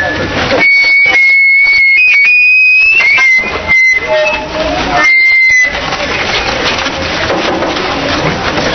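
Procession music: a high pipe playing long held notes with small pitch bends, broken by short pauses, over loud crowd noise.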